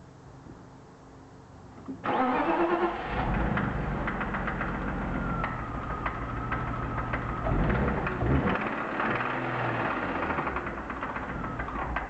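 BMW M52B25 inline-six starting about two seconds in with its cylinder 5 ignition coil unplugged, then running for about ten seconds with a rapid knocking before it is switched off. The knock stays the same with the coil pulled, which leaves the owner's suspected rod bearing damage in doubt.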